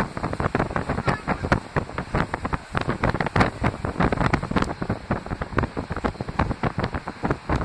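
Wind buffeting the microphone aboard a moving passenger train, gusty and uneven, with the train's running noise underneath.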